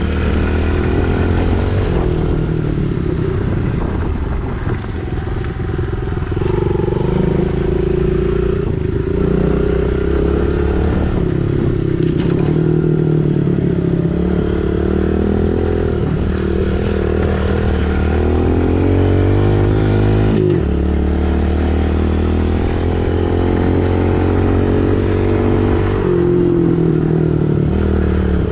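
Pit bike engine running hard while being ridden, its pitch rising and falling over and over with the throttle, with a brief cut about twenty seconds in.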